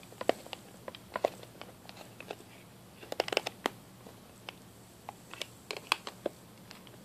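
Irregular small clicks and crackles of a plastic speaker housing being handled and worked with a screwdriver during disassembly, with a quick cluster of clicks about three seconds in and another near the end.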